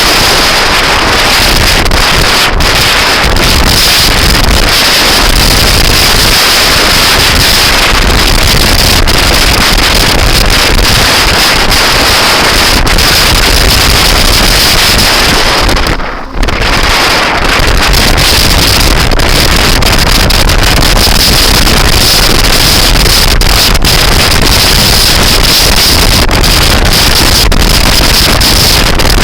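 Loud wind buffeting on the microphone of a moving scooter, a constant rush that drowns out the engine, easing off for a moment about halfway through.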